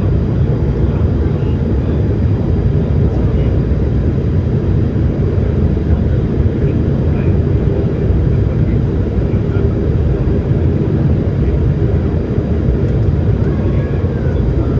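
Boeing 787 Dreamliner's Rolls-Royce Trent 1000 engines and airflow heard from inside the cabin during departure: a steady, loud, low rumble.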